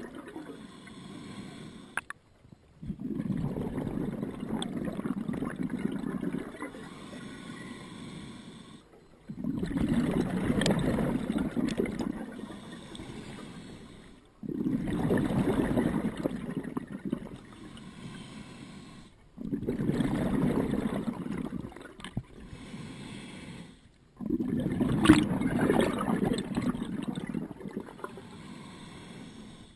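Scuba diver's own regulator breathing: five exhalations about five seconds apart, each a sudden loud rush of bubbles that fades, with quieter inhales between.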